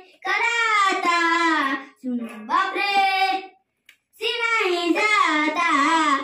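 A young boy singing a song in drawn-out, held phrases, with brief pauses between them and a longer one about four seconds in.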